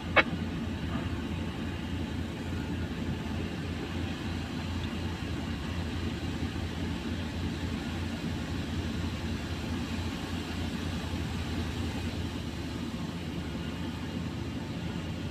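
Steady low rumble of idling vehicle engines, heard from inside a stopped car's cabin.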